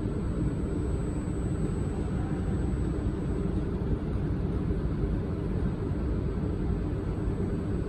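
Laser welding machine running: a steady low hum and whir with a thin high-pitched whine above it.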